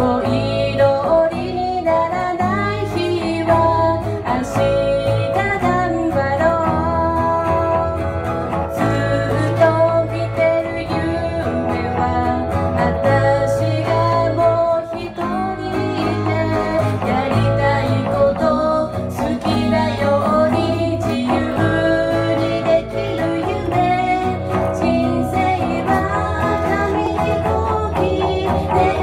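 Female voice singing a Japanese pop song into a microphone over strummed acoustic guitar, played live without a break.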